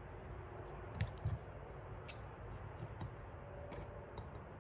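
A few scattered light clicks and taps as 4L60E transmission parts are handled and worked into place by hand, over a low steady hum.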